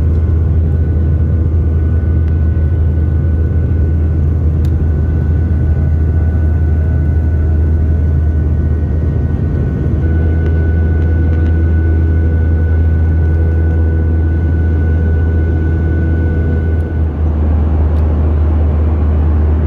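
Airliner cabin noise in flight: a loud, steady, deep drone from the jet engines and airflow, with a thin steady whine above it that stops near the end.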